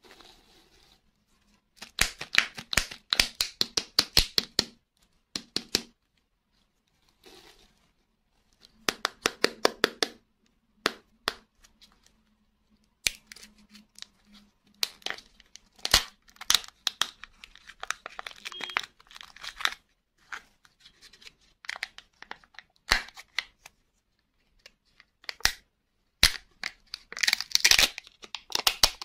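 Foil wrapper of a chocolate surprise egg crinkling and tearing as it is peeled off by hand, in bursts of rapid crackles with short pauses between. Near the end the foil lid is peeled back from the egg's plastic cup, the loudest crinkling of all.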